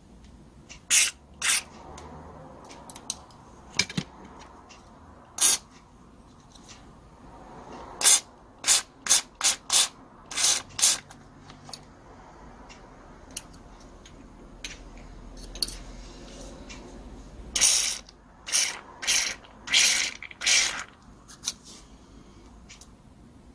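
Short hissing bursts from an aerosol spray can cleaning a small gas brush-cutter carburetor part, about fifteen quick sprays in clusters to clear built-up brown deposits. Light clicks of small metal parts being handled fall between the sprays.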